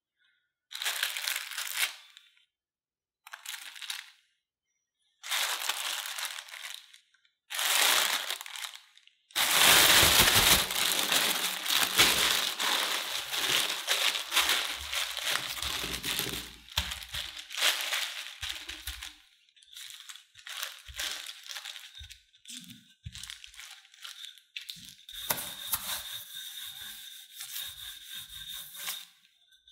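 Thin plastic food bag crinkling as it is handled: four short separate bursts of rustling, then a long, louder stretch of crinkling while potato dough inside the bag is pressed and flattened by hand, easing into intermittent rustles with a few soft knocks near the end.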